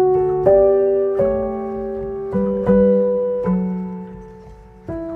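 Background music: slow solo piano, single notes and chords struck about once a second and left to ring and fade.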